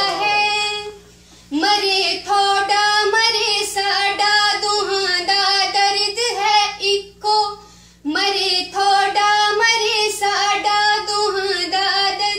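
A woman's solo voice singing a Punjabi song in long, wavering sung phrases. The singing breaks off about a second in and again near eight seconds.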